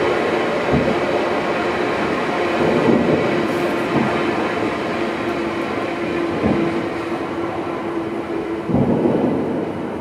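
Fireworks going off in a continuous rumble of crackling bursts, with heavier booms about a second in, after about six seconds and again near the end.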